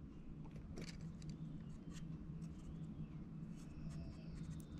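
Quiet workbench sound while a soldering iron heats the seam of a small brass-sheet box: a steady low hum with a scattering of faint ticks and taps as the iron tip and fingers work the brass.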